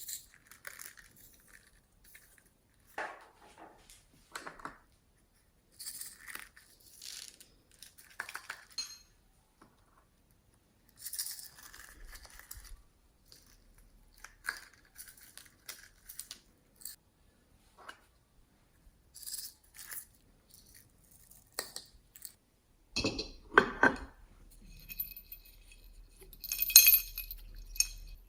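Slime being mixed and handled by hand: scattered sticky clicks and crackles, getting busier and louder near the end, with a bright ringing clink of a hard container.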